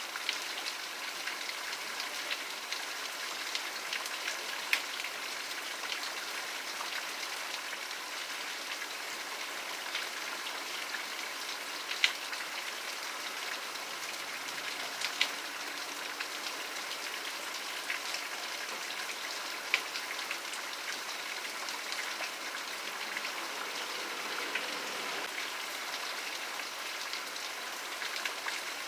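Steady rain falling, an even hiss with a few louder single drops ticking sharply on a surface now and then.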